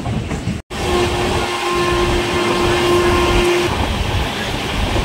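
Rumble of a moving train heard from inside a coach at the window, with a train horn sounding one long steady note starting about a second in.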